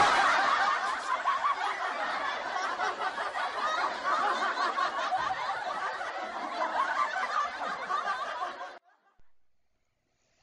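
Canned audience laughter from many people, a laugh track following a joke's punchline. It starts loud, eases off a little, and cuts off sharply more than a second before the end.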